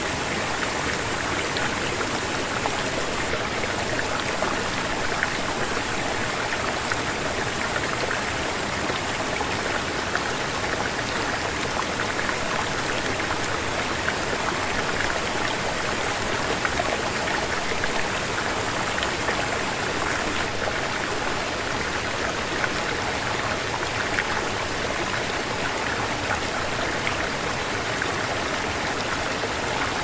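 A mountain stream cascading over rocks and small waterfalls, a steady rush of water.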